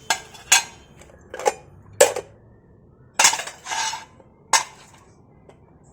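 Lunch box containers and a spoon knocking and clinking as the box is opened and handled: about seven short clinks and knocks, two near the middle drawn out into a brief scrape.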